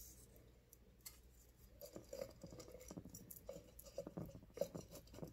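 Faint rustling and small sharp clicks, starting about two seconds in, as fingers push a charm down among the herbs and spices packed in a glass mason jar.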